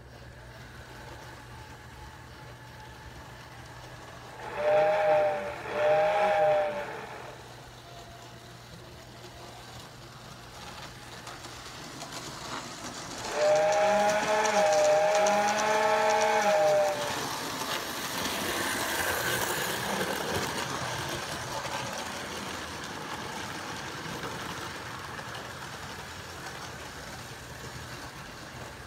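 Sound-equipped HO scale model steam locomotive sounding its chime whistle through its small speaker: two short blasts about five seconds in, then a longer blast a few seconds later, followed by a steam hiss that swells and slowly fades.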